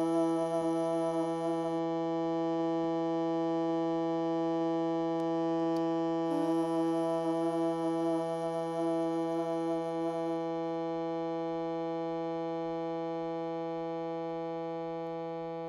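Harmonium reeds holding a sustained drone chord at steady pitch. The upper note changes briefly about six seconds in and is released about ten seconds in, leaving the lower drone to fade slowly.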